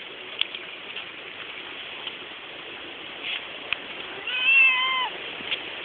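Domestic cat meowing once, about four seconds in: a wavering call of about a second that drops in pitch at the end. Faint scattered clicks sound before it.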